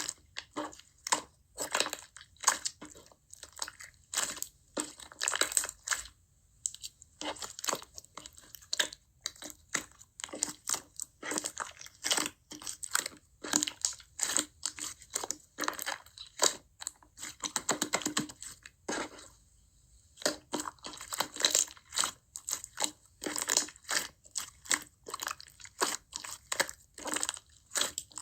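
Slime worked by hand: a quick, irregular run of crunchy clicks, crackles and pops, broken by two short pauses.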